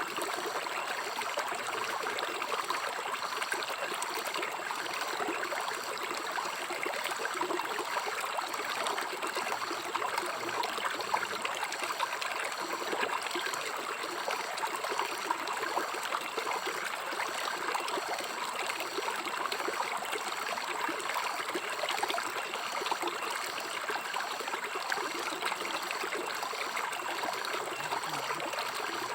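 River water flowing and trickling over rocks, a steady, even rushing and babbling.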